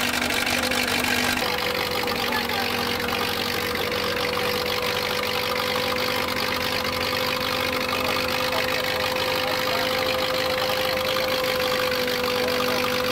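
Old stationary engine running steadily on gas from a biomass gas producer, with a steady mid-pitched hum.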